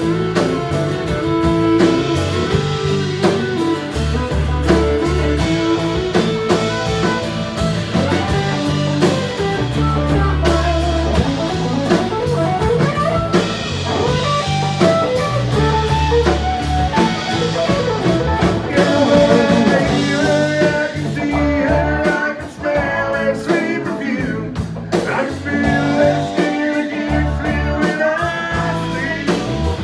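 Live country band playing, with fiddle, acoustic guitar, electric guitar and drums; voices sing in the second half.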